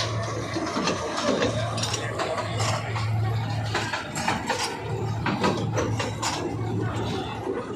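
Mechanical rattling and clicking over a low hum that comes and goes: machinery running.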